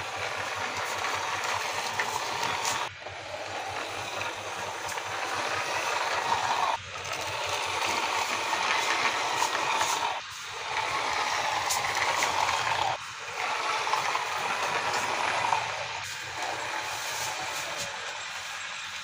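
A plastic toy truck's wheels rolling and grinding on rough concrete as it is pushed by hand. The pushes come in strokes of a few seconds each, with five short breaks between them.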